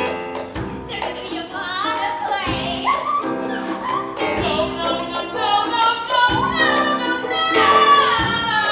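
Music with a steady beat and a woman singing a melody over it.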